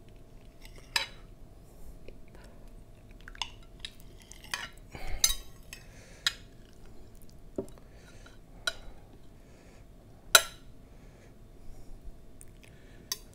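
Metal cutlery clinking and tapping against a plate while cutting into and lifting a wedge of gelatin dessert, in separate sharp clinks a second or two apart, the loudest about ten seconds in.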